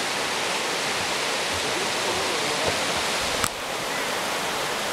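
Steady rushing of a river's rapids below a footbridge, an even hiss throughout. A single sharp knock sounds about three and a half seconds in.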